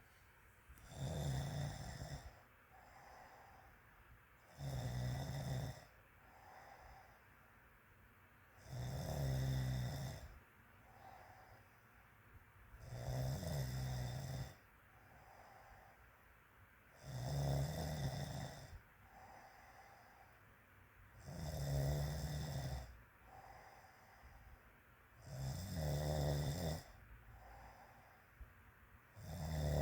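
A woman snoring in her sleep: a loud snore about every four seconds, each lasting about a second and a half, with softer breaths between.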